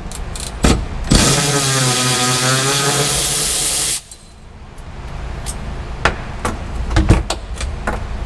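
Aerosol spray-paint can spraying black paint onto a small bracket in one steady hiss of about three seconds, with a few clicks and knocks before and after.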